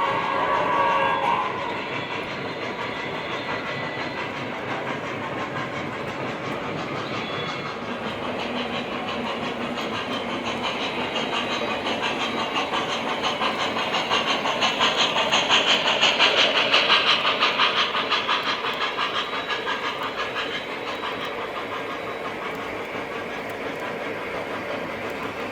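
O gauge model train running on the layout: a steady rumble with fast clicking of wheels over the track, growing louder to a peak about two-thirds of the way through, then easing off. A held whistle tone from the locomotive's sound system stops about a second and a half in.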